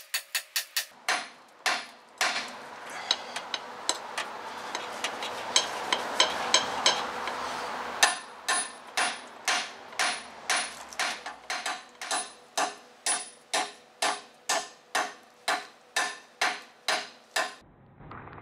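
Hammer striking the arm of a lug wrench set on a car wheel's lug nut, to knock the nut loose: a long run of sharp metallic blows, quick at the start, lighter and more rapid over a rushing noise in the middle, then steady at about two a second.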